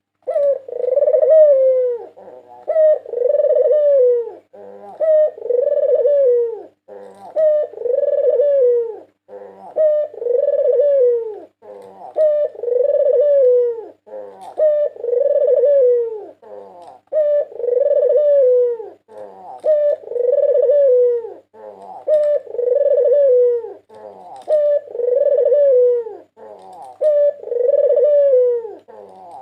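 White Barbary dove (puter putih) cooing over and over, about one coo every two seconds: each a short note or two followed by a long falling coo.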